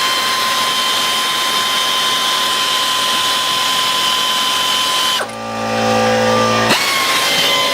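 Pneumatic air ratchet running steadily as it spins a suspension bolt, with a high, slowly falling whine. About five seconds in, the sound abruptly changes to a lower hum for a second and a half before the whine resumes.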